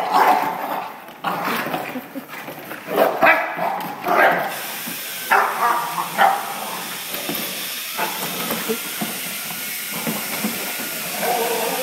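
Two dogs tugging and chewing at a plastic car bumper in play, giving several short barks in the first half, with a steady hiss from about halfway through.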